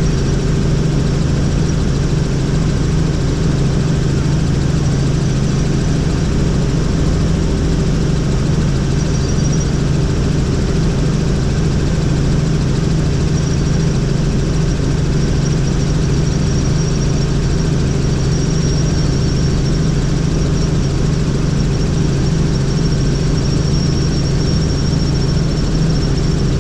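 Helicopter in flight: a steady, unbroken drone of rotor and engine, with a thin high whine above it that grows a little clearer in the second half.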